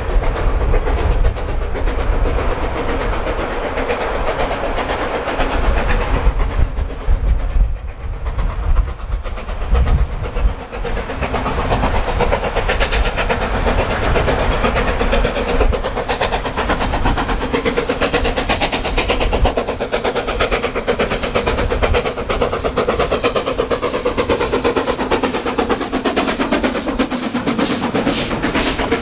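Steam locomotive hauling a train of coaches, its exhaust beats building as it draws near. Near the end the coaches rumble past with a fast, steady clatter over the rail joints.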